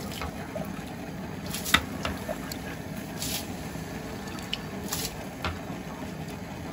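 Steel ladle scooping water out of the aluminium basin that serves as the pot's lid, with splashing and dribbling water and a few sharp metal clinks, the loudest about two seconds in. The cooling water is being bailed out because it has turned warm.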